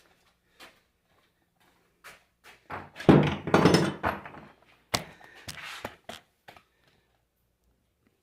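Workshop handling noises: scattered knocks and clicks, a loud rough clatter lasting about a second starting about 3 s in, then a sharp click and a few lighter knocks, as alternator parts and tools are moved on the bench after the bearing has been pressed out.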